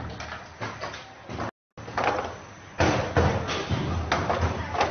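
Hard plastic fiber optic distribution boxes being handled and set down on an assembly line: a run of sharp knocks and clatter in the second half, over workshop room noise.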